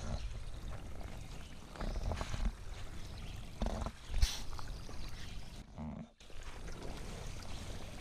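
Spring water pouring from a plastic pipe into a bucket and splashing onto the wet ground, under a low rumble. A sharp knock about four seconds in, and the sound drops out briefly just before six seconds.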